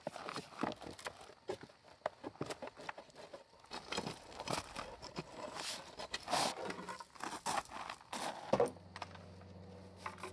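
A long-handled hand tool scraping and jabbing at gravel, soil and wood at the foot of a concrete footing: irregular crunches, scrapes and knocks. About three-quarters of the way in, music with steady low notes starts.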